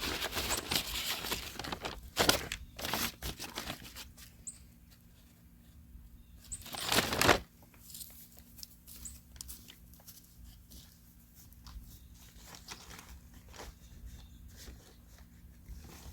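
Rustling and crinkling of a fertilizer bag being handled, with scattered sharp clicks. Near the middle there is one louder rush of noise lasting about a second, like granules being poured out.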